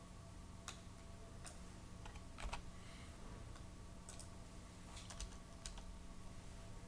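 Faint computer keyboard typing: scattered keystrokes, singly and in quick little runs, over a steady low hum.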